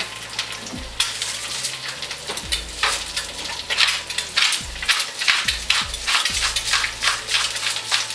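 Egg frying in olive oil, sizzling steadily in the pan, with a pepper mill twisted over it in a run of short grinding strokes from about three seconds in. A knock at the very start.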